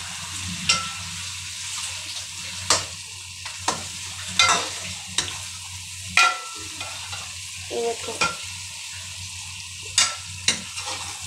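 Metal spoon stirring beef curry in an aluminium pot, knocking and scraping against the pot's sides every second or two over the sizzle of the frying meat and masala. A steady low hum runs underneath.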